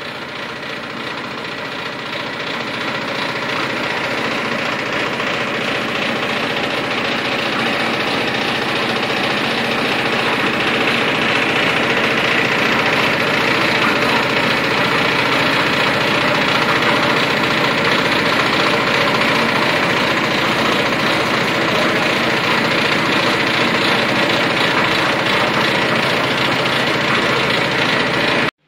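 The single-cylinder-class 8.5 hp diesel engine of a 500-litre concrete mixer running steadily with its drum turning. It grows louder over the first several seconds, then cuts off suddenly near the end.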